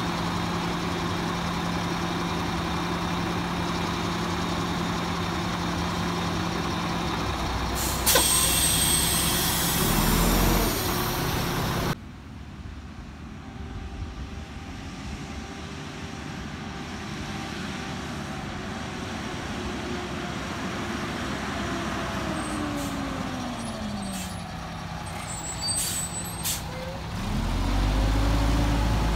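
Diesel engine of a Mack Granite garbage truck idling steadily, then a loud air-brake hiss about eight seconds in that lasts a few seconds. Later the truck drives up, its engine pitch falling and then rising again, growing loud and low as it passes close near the end.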